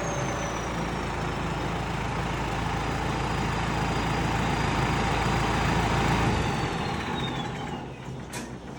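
Sonalika 60 DI RX tractor's turbocharged diesel engine idling with a high-pitched turbo whistle from the modified exhaust bend. The engine cuts off about six and a half seconds in, and the whistle slides down in pitch and fades as the turbo spins down.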